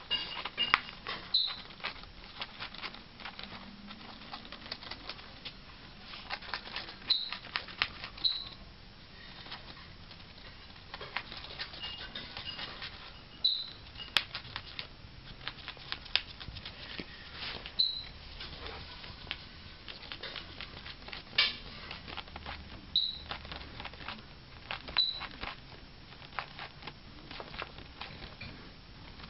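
Nyasa lovebird biting through a stiff paper postcard with its beak: rapid, irregular clicks and crunches of the card, with a short high squeak every few seconds.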